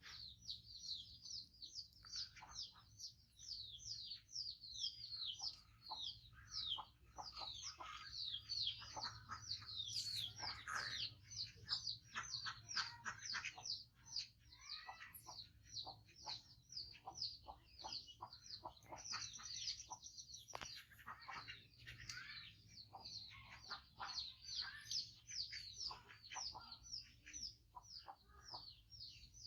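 Birds chirping continuously, many quick high chirps overlapping with one another, with scattered soft clicks underneath.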